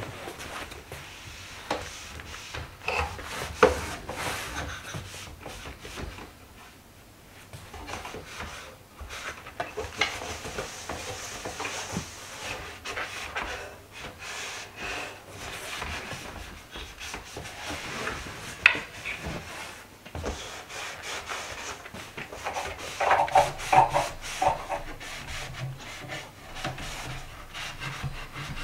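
A cloth rubbing and wiping along the wooden frame of a kotatsu table, in irregular strokes, with a few sharp knocks against the wood.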